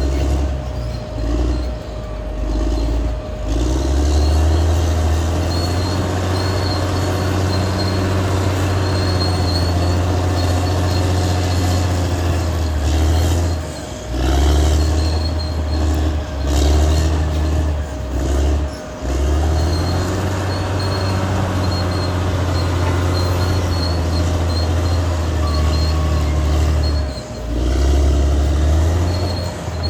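Caterpillar D6R XL crawler bulldozer working, its diesel engine running loud under a load that keeps changing, with a few brief dips. A faint high squeal from the running gear comes and goes.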